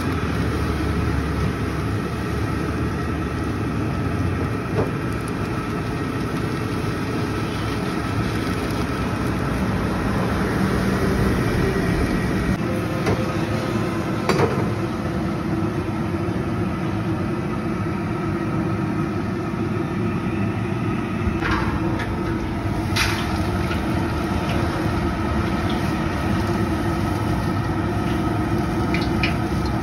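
A steady mechanical drone with a few short, sharp clinks and knocks, one about halfway through and a few more later on.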